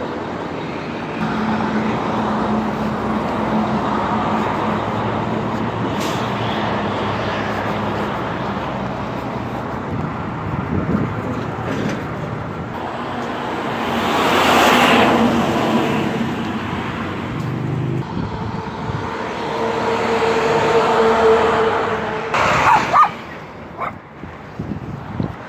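Road traffic close by: cars and trucks driving past on a busy road, one vehicle passing loudly about halfway through, with a few short sharp noises near the end.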